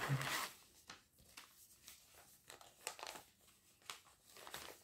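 Cross-stitch kit packaging rustling and crinkling as it is handled. There is a louder rustle at the start, then faint scattered crinkles and clicks.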